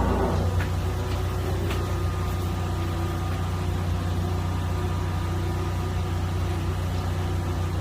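Steady low engine hum, the kind made by a high-pressure sewer jetting machine running during drain cleaning.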